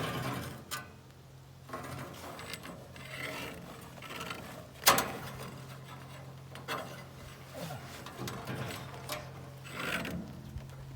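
Steel sawmill band blade rubbing and scraping against the wheel as the wheel is turned by hand to work the blade onto it, with one sharp loud clack about five seconds in.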